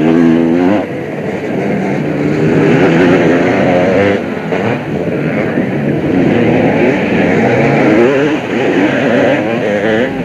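Several motocross bikes' two-stroke engines revving hard on the track, their overlapping whines rising and falling as the riders work the throttles. One engine climbs sharply in pitch right at the start.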